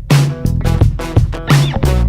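Background music: funky guitar-led track with bass and a steady beat.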